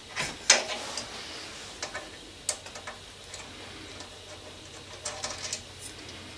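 Small metallic clicks and taps of hand tools and parts on a DeWalt DW733 thickness planer's housing while its slides are being taken out. The sharpest click comes about half a second in, and a quick run of clicks comes near the end.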